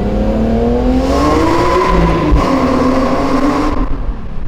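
BMW E46 M3's S54 straight-six accelerating hard, its engine note rising, with an upshift about two seconds in and a second climb before lifting off near the end.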